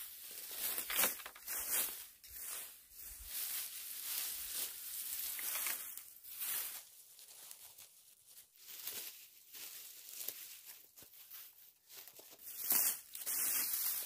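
Dry dead grass and old weeds being pulled up and torn by gloved hands, with irregular bursts of rustling. It is quieter in the middle and louder again near the end.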